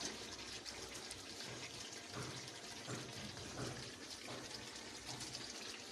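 Chicken curry masala frying in oil in a pan: a steady, quiet sizzle, the oil having separated from the masala.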